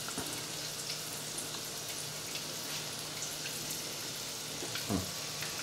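Fish croquettes frying in hot oil in a pan: a steady, soft sizzle with fine crackles.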